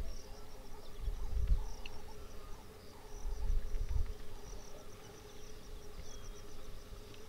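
Insects chirping and buzzing: quick repeated high chirps over a steady hum. Two low rumbling bursts come through, about a second in and again around three and a half seconds in.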